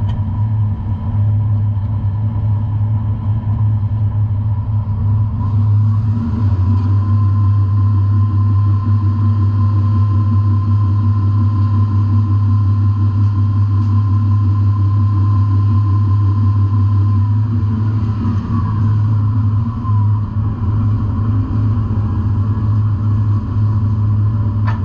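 Steady low drone of a scallop fishing vessel's engine and deck machinery, with a steady high whine above it. About two-thirds of the way through, a whine glides down in pitch.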